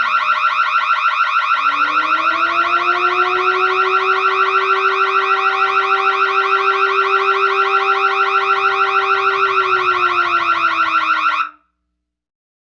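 Electronic burglar alarm sounding a rapid pulsing tone, joined about two seconds in by a second, lower steady tone that slides down near the end. The alarm cuts off suddenly shortly before the end.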